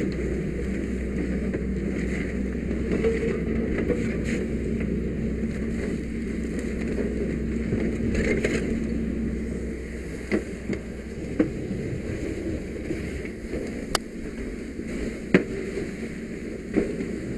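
Steady rush of a fire hose nozzle flowing water onto a house fire. In the second half the rush drops a little and a scatter of sharp cracks and pops comes through, the loudest a few seconds before the end.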